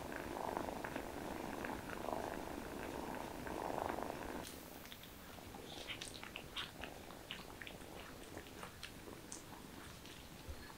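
Mother cat purring while being scratched on the head, the purr coming in swells about every second and a half. About four and a half seconds in it cuts to a quieter run of small wet clicks and smacks from a litter of kittens suckling.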